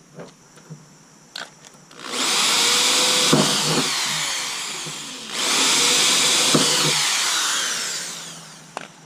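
Power drill boring into the steel sheet metal of a car hood in two runs of about three seconds each, the second starting as soon as the first eases off.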